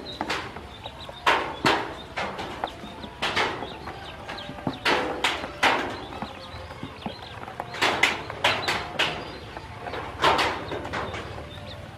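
A group of newly hatched yellow ducklings peeping: many short, sharp cheeps in irregular clusters, some coming close together.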